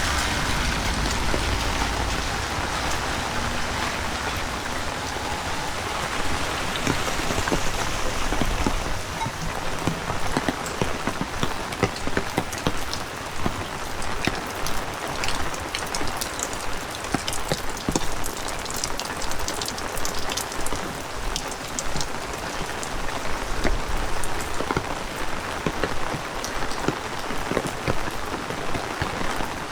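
Heavy rain falling and pattering on surfaces, with many sharp, close drop hits from about nine seconds in. A low rumble fades out over the first several seconds.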